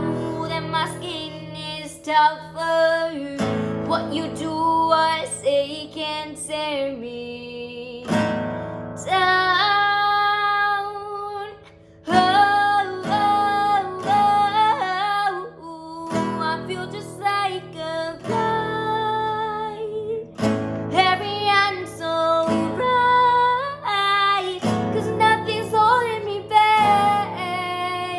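A woman singing a song over a plucked-string instrument accompaniment, with short pauses in the music between phrases.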